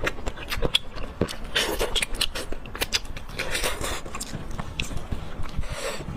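Close-miked eating sounds of someone chewing spicy pork leg curry with rice: irregular smacks, clicks and bites.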